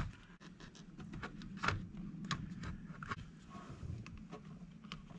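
Irregular light clicks and taps of small plastic RC car parts being handled and pressed together by hand, with one sharper click right at the start.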